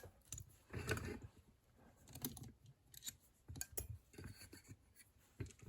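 Faint, irregular metallic clicks and scrapes of a key being worked back out of a Chubb detector-lever padlock, the levers clicking as it turns and withdraws.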